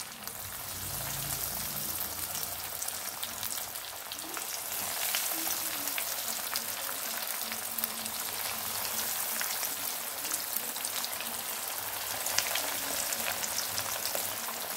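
Breadcrumb-coated potato and poha patties sizzling and crackling in hot oil in a pan. The sizzle grows louder in the first couple of seconds as pieces are dropped in one by one, then holds steady.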